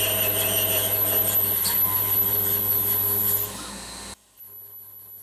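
CNC router spindle driving an 8.3 mm twist drill into thick aluminium plate: a steady spindle whine over scraping, chattering drilling noise. The drill chatters and vibrates, a sign that the plunge feed rate is too low for it. About three and a half seconds in the drilling noise falls away, and then drops abruptly to a much quieter background.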